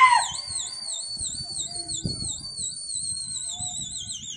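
A high, shrill whistle held for several seconds, wavering up and down about three times a second and slowly dropping in pitch, then sliding sharply up as it ends. It opens on the tail of a louder, lower held call.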